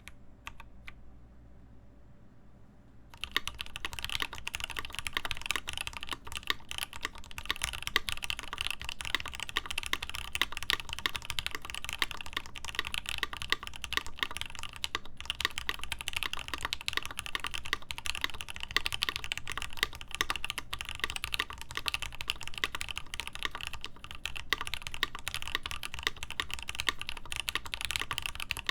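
Continuous fast typing on a mechanical keyboard with lubed linear Gateron Ink switches, a polycarbonate plate, an internal dampener and GMK ABS keycaps. A few isolated key clicks come first, and steady typing begins about three seconds in.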